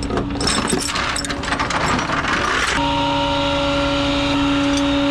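Steel tow chain clinking and rattling against the flatbed's aluminium deck as it is handled, with quick metallic clicks. Nearly three seconds in, a steady machine hum with a clear pitch starts abruptly and keeps going.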